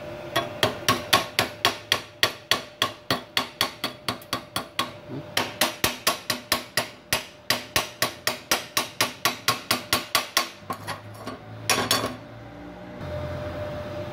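Chipping hammer striking slag off a fresh stick-electrode weld bead on steel plate: quick, sharp metal taps, about four a second, with a short pause near the end.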